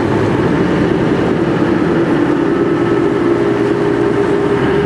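Inboard engine of a wooden Venetian water taxi running steadily under way: a constant drone over a steady rushing hiss of water.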